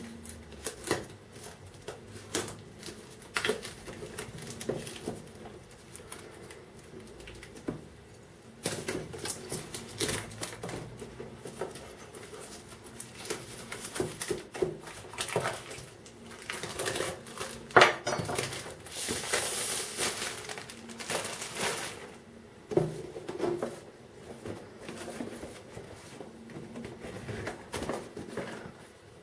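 Plastic shrink-wrap being slit with a knife and peeled off a cardboard box by hand: irregular crinkling and crackling of the polyethylene film with small taps and clicks of handling. A sharp click comes about two-thirds through, followed by a couple of seconds of denser rustling as the film is pulled away.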